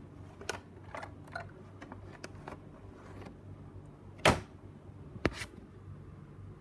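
Clear plastic blister packaging being handled: a scattering of light plastic clicks and taps in the first couple of seconds, then two sharper knocks about a second apart after about four seconds, the first the loudest, over a low steady hum.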